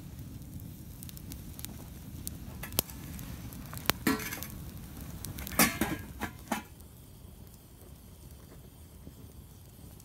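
Wood campfire crackling, with several sharp metal-and-glass clinks, some ringing briefly, between about three and seven seconds in as the glass lid of a stainless-steel pot oven is handled and lifted off.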